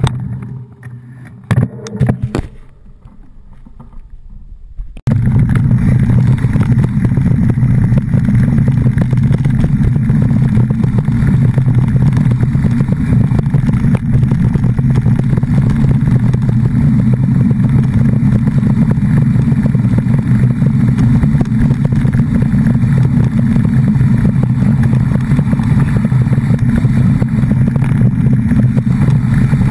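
A motor engine running steadily and loudly, cutting in suddenly about five seconds in after a few brief knocks.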